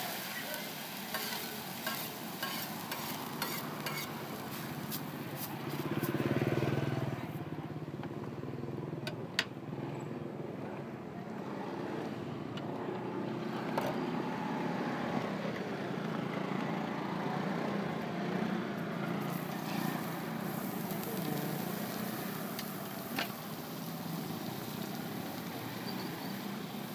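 Laotian pancake frying in oil on a vendor's flat griddle: a sizzle with many sharp clicks and taps from the spatula, fading for a stretch in the middle and returning later. A low rumble of traffic runs underneath, swelling as a vehicle passes about six seconds in.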